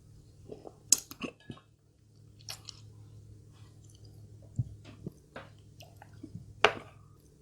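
A person chewing and eating food, with irregular sharp crunches and mouth clicks; the loudest comes about a second in and another near the end.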